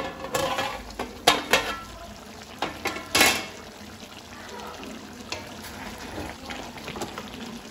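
A flat aluminium plate lid is lifted off a kadai with several metal clatters, then a spatula stirs the simmering chicken curry, scraping and tapping against the pan more quietly.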